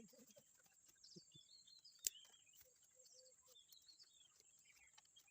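Faint birds chirping, with one sharp click about two seconds in.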